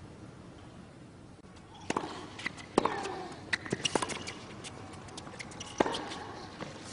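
Tennis rally on a hard court: sharp racket strikes and ball bounces at an irregular pace, starting about two seconds in, with short sneaker squeaks and footsteps between them over a hushed crowd.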